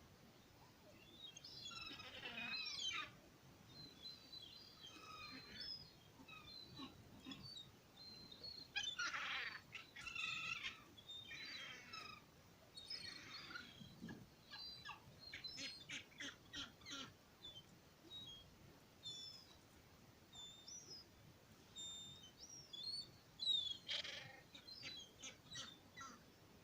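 Gulls crying, a few loud harsh calls spread through the quiet, with many short high chirps in between.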